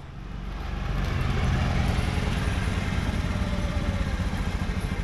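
Motor scooter engine running at low speed as the scooter rides up close and pulls to a stop; the sound grows over the first second, then holds as a pulsing low rumble and eases off near the end.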